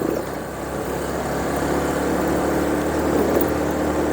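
Motorbike engine running steadily while riding, with road and wind noise, getting gradually louder over the first couple of seconds.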